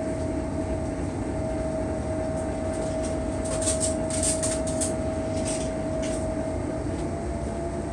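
Steady low drone of a towboat's engines and machinery heard from inside the galley, with a constant hum riding over it. A few faint clinks and rattles come partway through.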